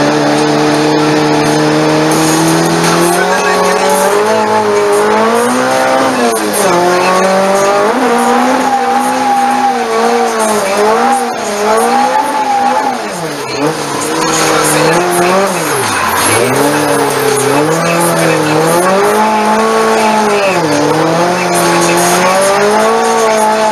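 Toyota AE86's engine heard from inside the cabin. It holds a steady pitch for the first few seconds, then revs up and down again and again as the throttle is worked through drifts on the wet track.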